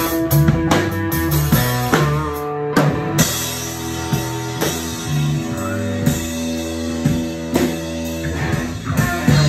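A rock band playing: a drum kit keeping a steady beat under electric bass and guitar.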